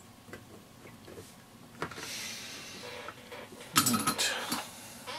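Light clicks and taps from soldering-iron work on a small metal-cased circuit module, then a soft hiss, and about four seconds in a short burst of clinking clatter as an arm reaches across close to the microphone.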